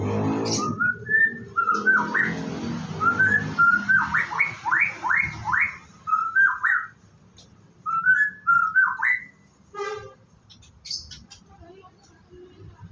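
White-rumped shama singing several short phrases of clear whistled notes, with a run of quick upward-sweeping whistles in the middle. A short dry rattle comes about ten seconds in.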